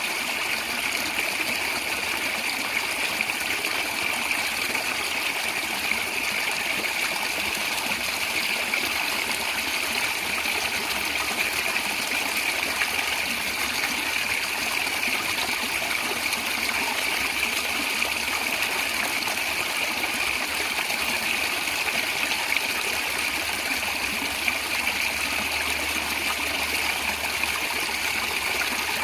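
A stream flowing and gurgling over stones in a steady, even rush.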